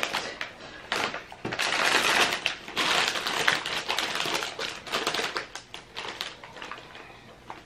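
Foil snack bag crinkling as it is pulled from a pile of packaging and turned over in the hands, a dense crackle that eases off in the last couple of seconds.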